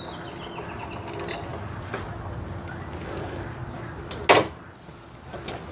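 A single loud clunk about four seconds in, over a faint steady hum: the Victory Empulse TT electric motorcycle's chain drivetrain taking up its slack, the backlash clunk it is known for on take-off.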